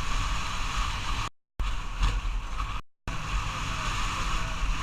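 Xiaomi Yi action camera's recorded sound: a steady rushing noise with a low rumble that cuts out to dead silence twice, about a second and a half in and again near three seconds, each gap about a quarter second long. The abrupt drop-outs are the camera's sound fault.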